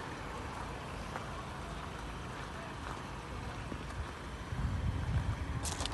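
Ford Ranger Raptor pickup crawling slowly over tree stumps, its engine running at low revs, with a swell of low rumble about four and a half seconds in and a brief sharp click near the end.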